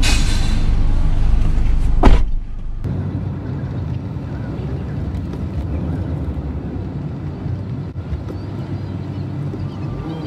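A car door shuts with a single sharp thud about two seconds in. After it comes the steady low hum of a car's engine and road noise from inside the cabin while driving.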